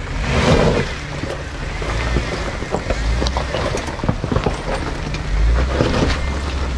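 Jeep Wrangler Rubicon JKU engine running at low revs as it crawls over loose rocks in four-low, a steady low rumble. Scattered short knocks and crunches come from rocks shifting under the tyres.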